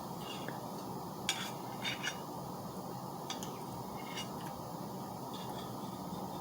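A few light, sharp clinks of cutlery against dishes, spaced irregularly over steady background noise.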